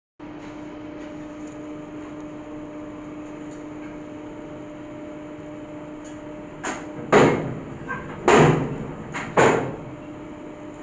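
A steady low machine hum runs throughout. Loud, short rustles and snaps of stiff paper label sheets being flipped and handled come four times in the last few seconds.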